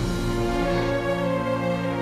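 Background music of long, held notes at a steady level, with no speech.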